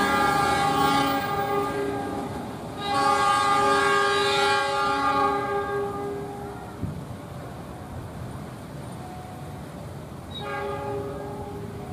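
Train horn sounding a chord of several notes in three blasts: a long one running on from before, a second long one about three seconds in, and a short, quieter one near the end, over the rumble of the train.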